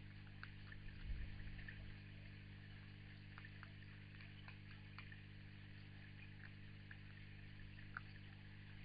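Near silence: a steady low electrical hum with hiss, faint scattered ticks, and a soft low thump about a second in.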